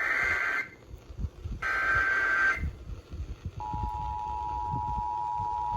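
Emergency Alert System header: the end of one screeching burst of SAME data tones, a second burst of about a second, then the steady two-tone EAS attention signal, two pitches sounding together, starting about a second after that and holding on.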